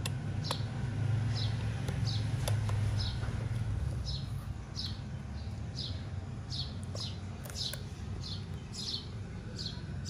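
A small bird calling over and over, a short falling chirp about twice a second, over a low background rumble.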